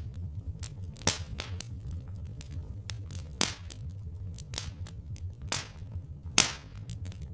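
Wood fire crackling, with irregular snaps and three loud pops over a steady low rumble.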